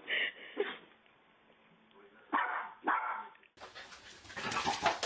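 A dog barking in short, sharp bursts, a couple near the start and two more about two and a half seconds in. From about three and a half seconds a louder, busy jumble of noise takes over.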